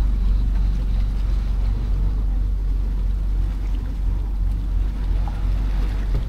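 Boat engine running with a steady low rumble as the boat moves along.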